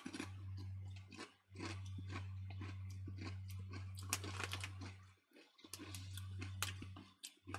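A person chewing kettle-cooked potato crisps close to the microphone: an irregular run of small crunches and crackles over a low steady hum.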